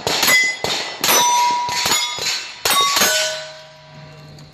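A quick string of about eight or nine shots from a pistol-caliber carbine over three seconds. Steel targets clang and ring at different pitches as they are hit, and the last plate's ring lingers for about a second and a half.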